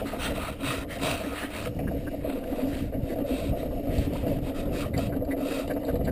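Steady scratchy rubbing and rustling of corn stubble and blind cover against the camera, close to the microphone.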